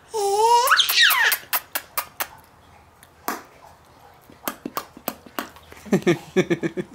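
A high gliding vocal sound in the first second, then a string of sharp mouth clicks made to amuse a baby, and about six seconds in a baby girl's short run of giggles.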